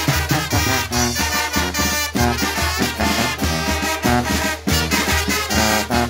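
A Guerrero-style wind band playing. Trumpets and alto saxophones carry the tune over a tuba bass line, and a bass drum and cymbal keep a steady beat.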